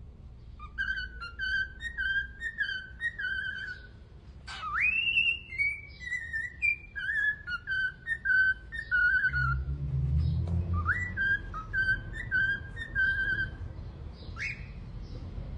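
Ringneck parakeet whistling runs of short, warbling pitched notes, with one rising whistled swoop about four seconds in. A low rumble comes in after about nine seconds.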